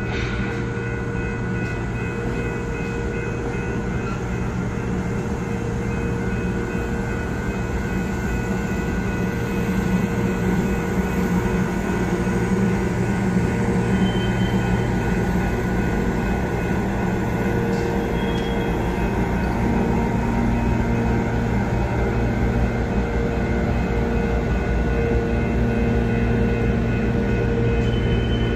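Passenger cars of a BNSF office car special train rolling slowly past while backing up: a steady rumble of wheels on the rails with a constant hum, a little louder from about ten seconds in.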